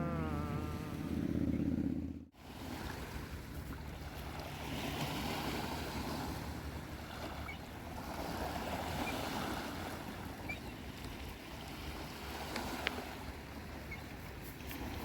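Ocean surf washing onto the shore, a steady rushing that swells and ebbs every few seconds. A music track stops abruptly about two seconds in.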